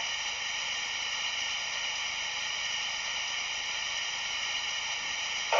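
Recorded steam-blower (auxiliary blower) sound from the sound decoder of a Märklin 55077 gauge 1 BR 78 steam locomotive model: a steady hiss of steam, swelling louder right at the end.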